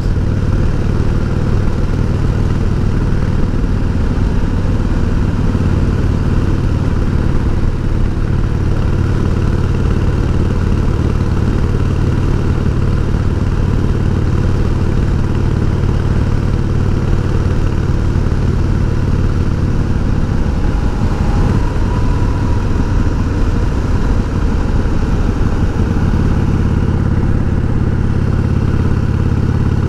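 1988 Harley-Davidson Heritage Softail's V-twin engine running steadily under way with its sidecar attached, with an even rush of wind over it. About twenty seconds in, the engine note shifts for a few seconds before it settles again.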